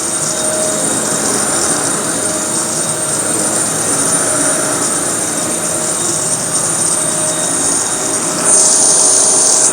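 Kenmore Elite vacuum cleaner running steadily with a high whine and a rush of air, plus a squeaking the owner can't place, from a machine not run in years. The rush of air gets louder and hissier about eight and a half seconds in.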